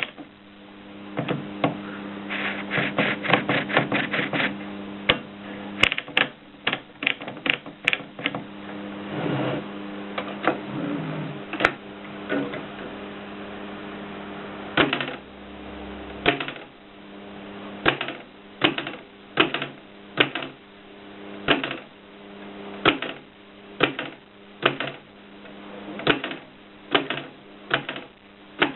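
AEG Mignon 4 index typewriter being typed on: sharp strokes as each letter is struck, coming in quick runs for the first several seconds, then spaced about one to two a second. A steady low hum lies underneath.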